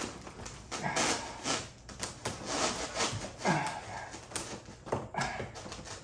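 Scissors working at a tough plastic packing strap around a cardboard carton, in several short scraping, rustling bursts with a few clicks, the strap not cutting easily. Two brief grunts of effort in the middle and near the end.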